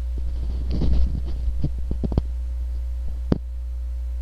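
A few sharp clicks and one louder knock near the end as the car's driver's door is opened, over a steady low rumble.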